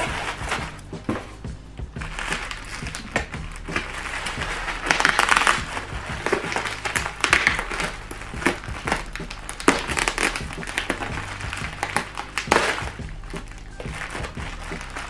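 Bubble wrap and plastic packaging crinkling and crackling in irregular bursts, with scattered small clicks, as hands handle a taped bubble-wrap bag and pick at the tape.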